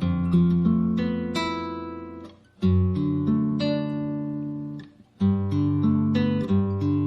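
Acoustic guitar music: plucked and strummed chords that ring out and fade, with two short pauses.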